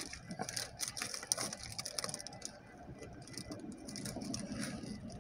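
Faint rustling and crinkling of a paper food wrapper being handled: a scatter of small crackles and ticks, thinning out about halfway through.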